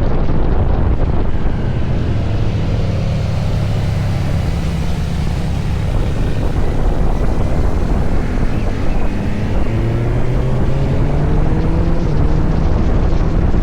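Kawasaki Z900 SE's inline-four engine through an SC-Project CR-T exhaust, under way with wind buffeting the microphone. The engine note holds steady for the first few seconds, then rises slowly in pitch through the second half as the bike accelerates.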